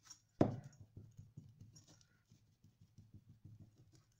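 A sponge dabbing paint onto a ceramic vase in quick, soft, irregular pats, after one sharp knock about half a second in.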